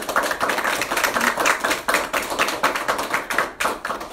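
A small group of people applauding close by, a dense patter of hand claps that thins out and stops near the end.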